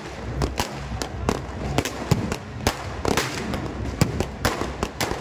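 Firecrackers and fireworks going off in quick, irregular succession: many sharp bangs and cracks, several a second, overlapping one another.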